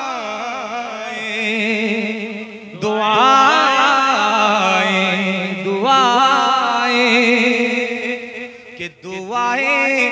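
A man singing a line of an Urdu sehra in tarannum into a microphone, drawing out long, wavering, ornamented notes, with a brief break about nine seconds in.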